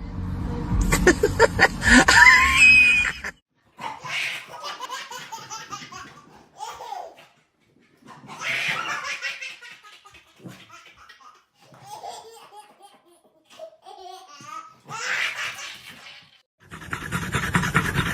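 People laughing, in several separate stretches a few seconds long with short silent gaps between them.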